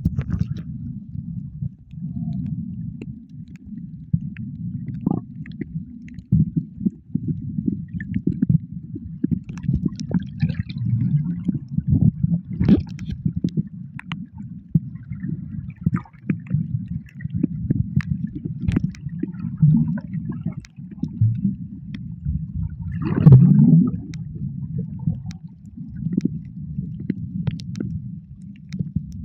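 Muffled underwater water sound: a continuous low rumbling and gurgling, with scattered faint clicks and a louder gurgle about 23 seconds in.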